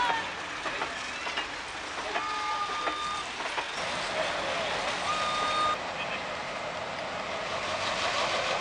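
Passenger carriages rolling past on the rails with steady wheel noise, a brief wavering squeal at the start, then a high steady squeal twice (about a second long, then shorter). About two-thirds of the way in, a diesel locomotive's engine takes over, running steadily and growing slightly louder as it approaches.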